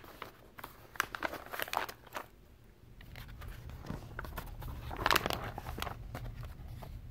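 Pages of a picture book being turned and pressed flat by hand: paper rustling and soft slaps, in two bursts about a second in and about five seconds in.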